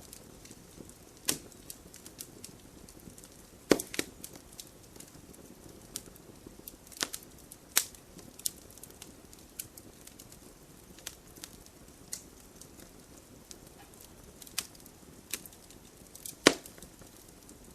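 Fire crackling in a fireplace: scattered sharp pops and snaps at an uneven pace over a soft steady hiss, with the two loudest snaps about four seconds in and near the end.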